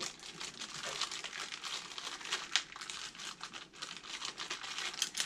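Blind-pack packaging being handled and torn open, a busy crinkling and crackling with quick irregular snaps throughout.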